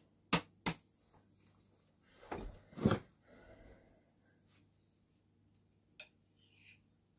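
Two sharp slaps of hands patting a full belly, then a louder rustle and knock as a ceramic bowl is picked up, and a single clink of a fork against the bowl about six seconds in.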